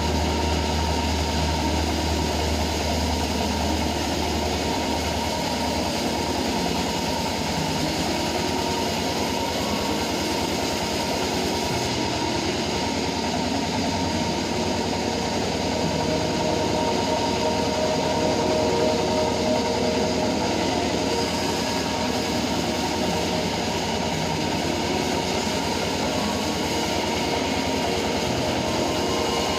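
Homemade band sawmill running steadily: a constant engine drone under a dense mechanical rush of the band saw, unbroken throughout.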